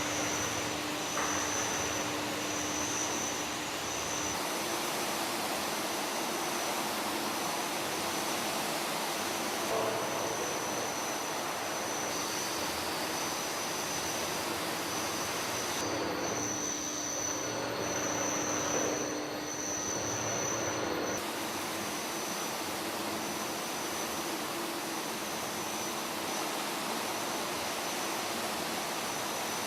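Komman Monster Forceline 2700 automatic carpet washing machine running through a wash: a steady rushing machine noise with a thin high whine and a low hum, shifting abruptly a few times.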